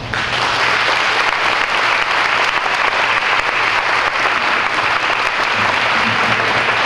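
Large audience applauding: the clapping breaks out all at once and stays steady and dense.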